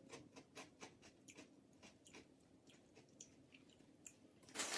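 Faint crunching of a Bugles corn chip filled with guacamole and pickled jalapeño being chewed with the mouth closed: a quick, irregular run of crisp crackles that thins out after about two seconds. A louder burst of noise comes near the end.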